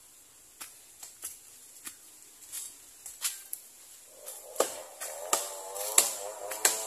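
Footsteps crunching through dry leaves and twigs, a run of sharp, irregular crackles that grow louder and closer together. A wavering pitched sound joins from about two-thirds of the way through.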